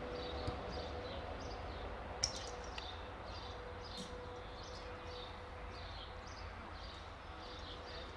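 Outdoor pitch ambience with small birds chirping again and again, over a faint steady hum. About two seconds in comes one sharp knock of a football being kicked.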